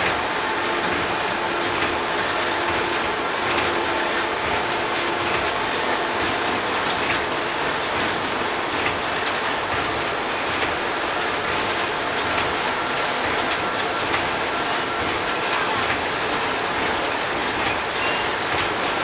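Automatic washing-powder packaging machine running: a steady mechanical clatter with many small clicks.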